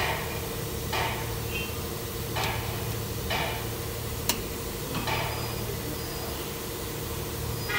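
Light metallic knocks and clinks, a few of them roughly a second apart, with one sharp click about four seconds in, over a steady low hum.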